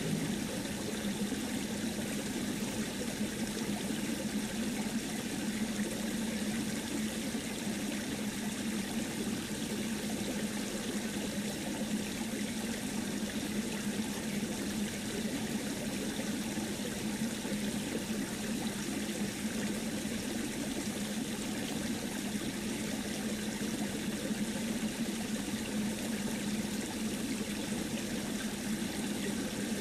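Steady, unbroken rushing noise like running water, with a constant low hum beneath it.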